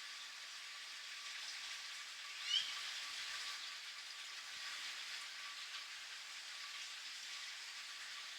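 Steady patter of falling rain, with one short bird chirp about two and a half seconds in.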